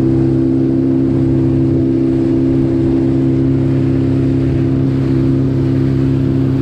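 Motorboat engine running steadily at speed, a constant drone that holds one pitch, over the rush of wind and water along the hull.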